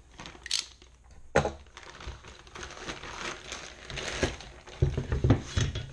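A package being opened and its contents handled: continuous rustling, a sharp click about a second and a half in, and a few dull knocks near the end.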